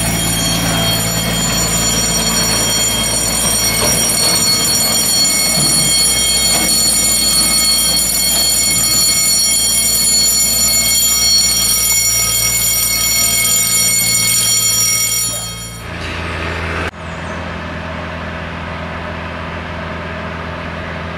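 Miniature ride train running on its track, heard from on board: a steady rumble with a high whine over it. About sixteen seconds in it drops away as the train pulls up, leaving a quieter steady low hum.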